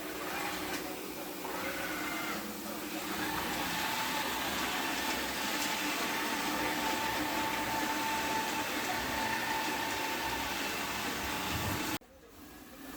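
Vacuum cleaner running steadily with a faint wavering whine, then the sound cuts off abruptly about a second before the end.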